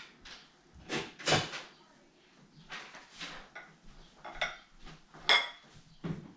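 Plates and utensils clattering: a series of separate clinks and knocks, the loudest near the end with a brief ringing tone.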